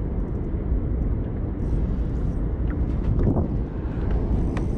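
Wind buffeting an action camera's microphone: a steady low rumble, with a few faint ticks.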